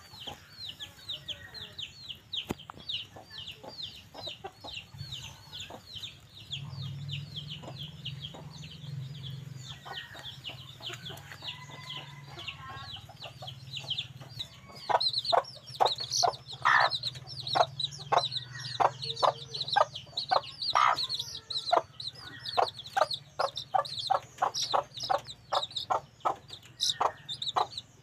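Junglefowl clucking in short repeated calls, which get louder and come two or three a second from about halfway through. A fast run of high, quick chirps runs under the first half.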